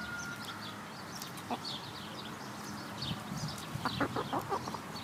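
A hen clucking: a single cluck about a second and a half in, then a quick run of about eight short clucks near the end. Small birds chirp in the background.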